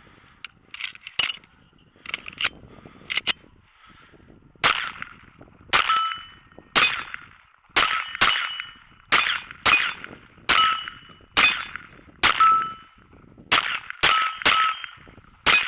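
Glock 44 .22 LR pistol fired at a steady pace of roughly one shot a second, about a dozen shots, each followed by a short metallic ring. Lighter clicks come in the first few seconds before the firing starts.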